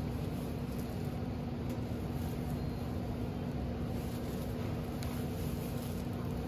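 Steady machine hum with a constant low tone over an even hiss, unchanging throughout.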